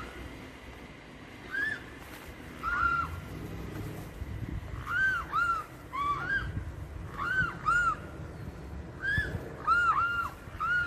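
Mute swan cygnets calling: about a dozen short, arched, whistling calls, often in quick pairs.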